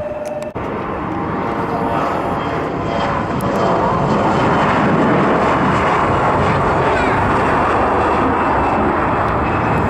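Turbofan engines of an Embraer regional jet at takeoff power: a loud roar that builds over the first few seconds, then holds steady.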